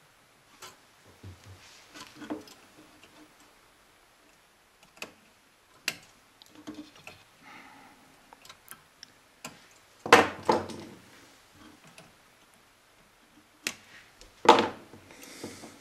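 Pliers clicking and tapping against capacitor leads and the metal chassis of a tube radio receiver while components are replaced, in scattered small ticks with two louder clusters of clacks, about ten and fourteen seconds in.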